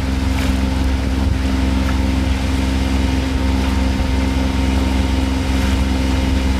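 A trailer-sailer yacht's engine running steadily at a constant speed, motoring the boat along, with a steady hiss of wind and water around it.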